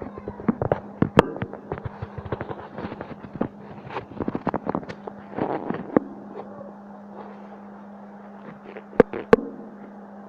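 Rapid, irregular sharp taps and clicks for about six seconds, then two loud knocks close together near the end, over a steady low hum.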